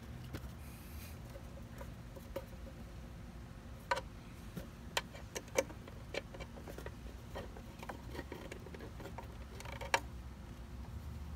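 Scattered light clicks and taps of a plastic cap cover being seated and pressed onto a Hayward pool pump's drive housing, over a low steady background.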